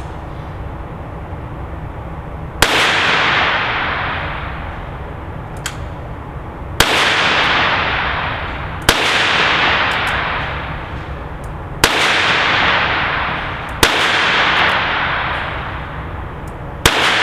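ALFA-Proj Hunter .22LR revolving carbine fired six times at an uneven, unhurried pace, each shot followed by a long echoing decay in the indoor range.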